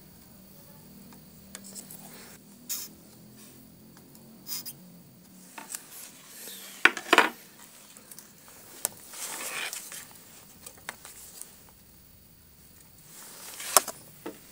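Scattered clicks, taps and brief rustles of small tools being handled and set down on a wooden workbench during circuit-board soldering. The loudest is a sharp cluster of clicks about seven seconds in, with another near the end.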